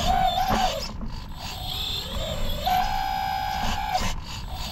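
Whining electric motor of a radio-controlled model construction machine, in the manner of an RC hydraulic excavator's pump or an RC truck's drive. The whine dies away within the first second, comes back about midway sliding up to a steady pitch, and stops shortly before the end, with a few sharp clicks over steady low noise.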